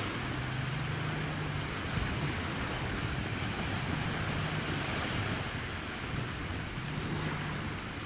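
Sea surf washing on the shore with wind on the microphone: a steady rushing noise. A low hum rises out of it and fades about three times.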